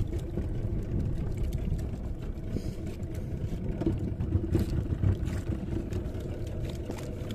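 Small fishing boat's engine running with a steady low rumble, with a few scattered light knocks.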